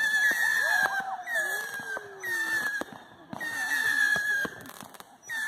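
Whistling fireworks going off one after another, roughly one a second. Each is a high, piercing whistle that starts with a sharp crack and slides slightly down in pitch. There is a short pause near the end before the next one starts.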